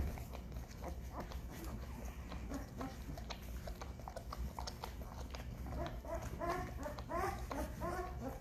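Newborn Great Bernese puppies (Great Pyrenees × Bernese Mountain Dog), 11 days old, whimpering in a quick series of short high squeaks that start about six seconds in. Before that, soft clicks and smacks run throughout.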